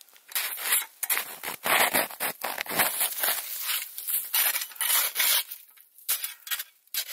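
Packed snow crunching and scraping close to the microphone in a run of irregular strokes, which die down near the end.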